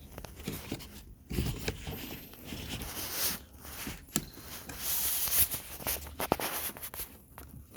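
Scattered small plastic clicks with scraping and rustling as hands press the locking tab of a wiring-harness connector and work it loose from a car door panel.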